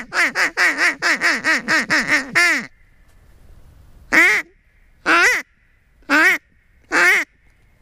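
Mallard duck call blown by mouth: a quick run of about nine quacks, each falling in pitch, then four single quacks about a second apart.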